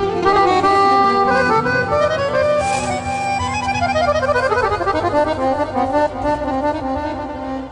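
Accordion playing a quick melody in rapid runs of notes over held low notes, with a long run that falls steadily in pitch about four to five seconds in.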